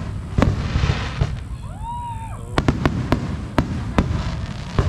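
Fireworks show: aerial shells bursting overhead in about nine sharp bangs, several in quick succession two and a half to three seconds in, with crackling hiss and low rumble between them. A short rising-and-falling whistle sounds about two seconds in.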